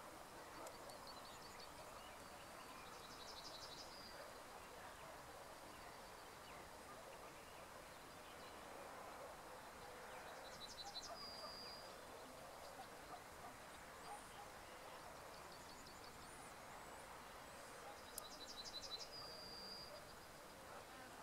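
Faint, steady outdoor background noise with a small bird singing three times, each song a quick run of repeated high notes ending in one longer held note.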